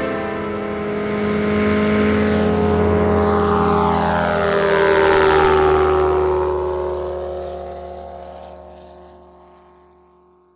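Light propeller airplane flying past: its engine drone grows louder, peaks about five seconds in with the pitch dropping as it goes by, then fades away.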